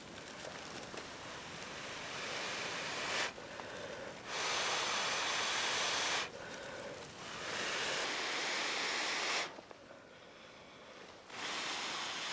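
A person blowing hard into a handheld bundle of dry grass tinder to coax it into flame, making four long rushing blows of breath with short pauses between them to inhale. The dry grass rustles faintly in the hands during the pauses.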